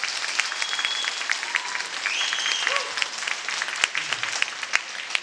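Audience applauding in a theatre, many hands clapping.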